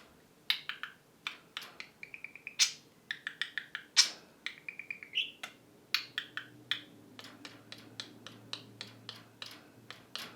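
Budgerigar chattering: a quick, irregular run of sharp clicks with short, high, buzzy whistled notes between them.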